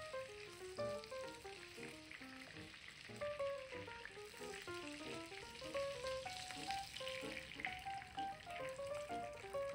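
Breaded chicken cutlets sizzling and crackling as they shallow-fry in hot vegetable oil in a frying pan, with a steady melody of background music playing over it.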